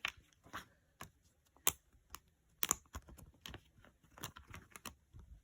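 Plastic Blu-ray case and its contents being handled: scattered sharp clicks and light taps, with two louder snaps about a second apart near the middle.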